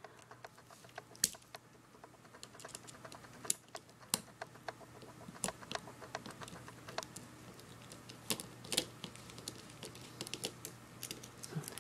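Precision screwdriver working tiny screws out of a camera's image-sensor board on its lens assembly: faint, irregular light clicks and ticks of metal bit and small plastic-and-metal parts.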